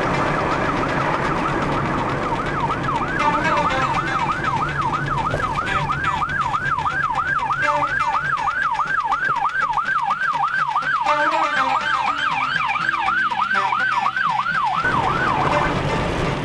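UK ambulance siren on yelp: a fast wail rising and falling about three times a second. It grows louder about three seconds in and cuts off abruptly near the end. Steady road and engine hum from the car lies beneath it.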